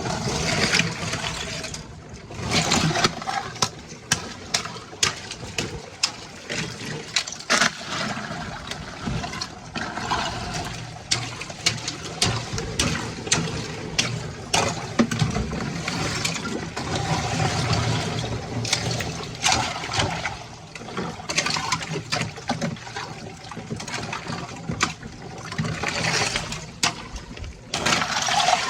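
Newly formed ice on an ice-bath tub being broken up by hand: many sharp cracks and knocks of ice pieces, with water sloshing and splashing.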